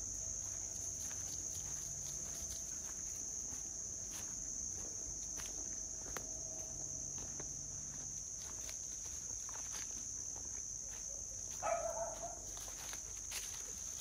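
Insects chirring steadily at a high pitch, over irregular crunching footsteps on dry leaf litter and twigs along a forest trail. A brief louder sound comes near the end.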